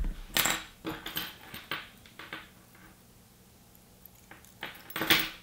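Metal fishing spinners and spoons and a plastic lure being handled on a wooden tabletop: a string of small clicks and clinks over the first couple of seconds, then another cluster of clicks and knocks near the end.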